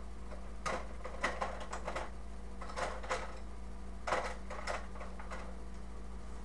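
Clicks and light scraping of tools and small metal parts being handled while taking a carburetor apart, in four short clusters, over a steady low hum.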